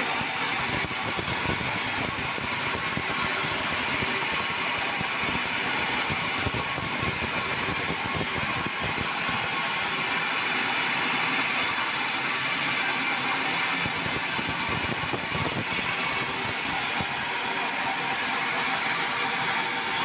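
Sawmill saw cutting lengthwise through a red meranti log, the saw and its drive running steadily.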